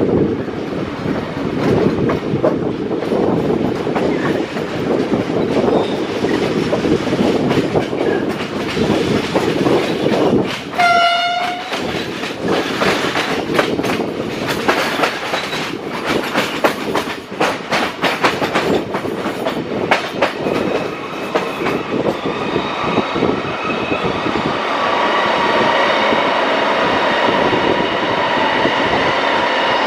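Passenger train hauled by an ÖBB Class 2016 'Eurorunner' diesel-electric locomotive running, heard from an open carriage window: a steady rumble, then a short single horn blast about eleven seconds in. The wheels then click over rail joints and points, and near the end the sound grows steadier and louder with a whine in it as the train runs into a tunnel.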